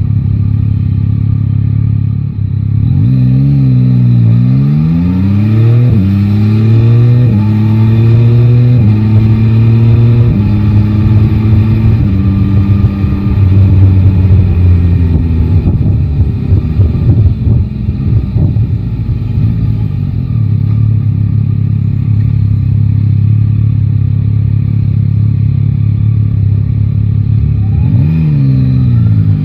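Yamaha Tracer 9 GT's 890 cc inline-three engine running steadily at low revs, then accelerating hard through the gears: the pitch rises and drops back at each upshift, about once a second. It settles to a steady cruise, then pulls away again with rising revs near the end.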